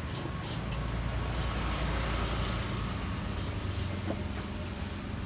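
A motor vehicle engine running with a steady low rumble that swells a little about two seconds in, with short hissy scuffs repeating two to three times a second over it, in a walking rhythm.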